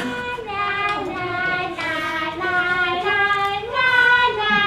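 A high voice singing slow, long-held notes, stepping down in pitch over the first second or so and rising again about four seconds in.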